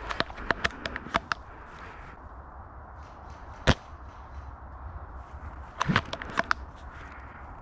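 Airsoft guns firing: a quick run of sharp shots in the first second and a half, a single loud crack just before the middle, and another run of shots about six seconds in.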